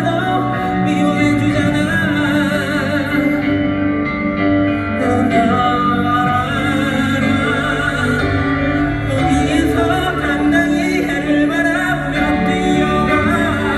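Live pop ballad: band accompaniment with a sustained, wavering vocal melody that carries no clear words.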